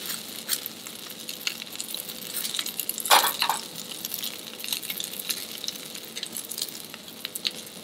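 Langoustine tail and pumpkin pieces sizzling in oil on a steel plancha, a steady crackle of fine spatter. Light clicks of metal tweezers turning the pumpkin pieces, with a louder crackle about three seconds in.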